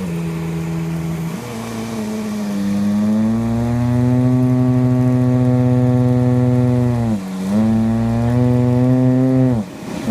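Vacuum cleaner making a continuous farting sound, a held, pitched tone that wavers, sagging in pitch and recovering about seven seconds in and again near the end.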